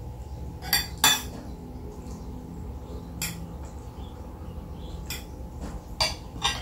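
Spoon and fork clinking against a plate while eating, about six short sharp clinks spread over several seconds.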